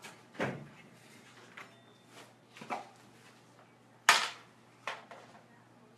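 A handful of short knocks and clicks from handling things at close range, the sharpest and loudest about four seconds in, with low room tone between them.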